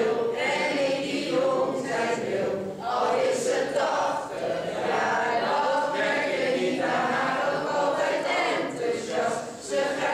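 A mixed group of men, women and children singing a song together in Dutch, like an amateur choir.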